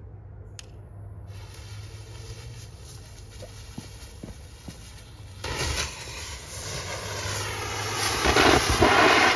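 A Fire Lollipop hand fountain firework catches about five seconds in and sprays with a rushing hiss that grows louder, after a few faint clicks over a low hum.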